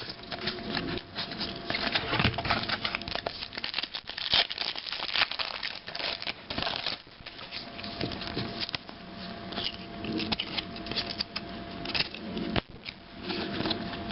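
Trading cards being handled and flipped through by hand: a steady run of quick clicks, slides and rustles of card stock.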